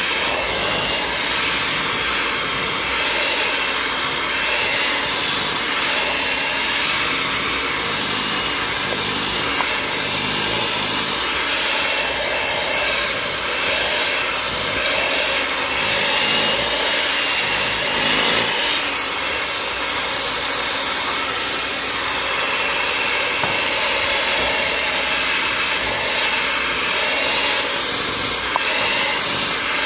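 Electric mixer running steadily, a continuous motor whir while beating cake batter.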